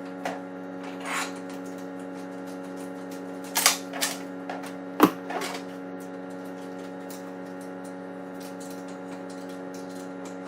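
A few sharp clicks and knocks of hardware being handled while a fire extinguisher bracket is fitted, clustered in the first half and loudest about five seconds in. A steady hum runs under them throughout.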